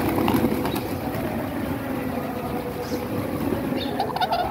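Flock of pigeons feeding on the ground, their wings flapping as birds take off and land, with a flurry of flaps at the start and a few more near the end, over a steady low noise from the flock.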